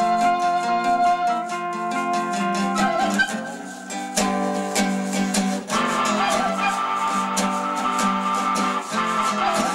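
Live instrumental music: guitar playing plucked and strummed chords under a sustained, wavering melody line, with a brief drop in loudness about three and a half seconds in.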